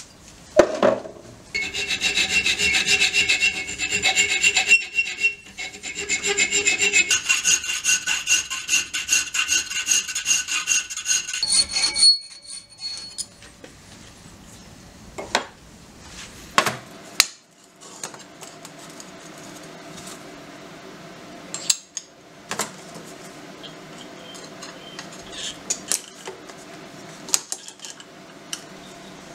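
A file stroking a small steel key blank clamped in a bench vise: fast, even rasping strokes for about ten seconds, with the thin steel ringing at several high pitches. After that come scattered light clicks and knocks of metal being handled.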